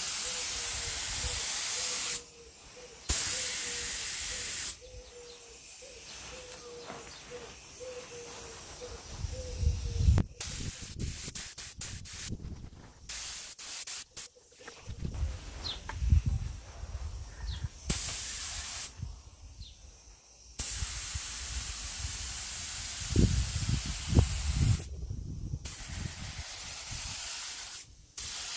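Compressed-air gravity-feed spray gun spraying gold paint, a loud hiss in separate bursts as the trigger is pulled and let go, with quieter gaps between.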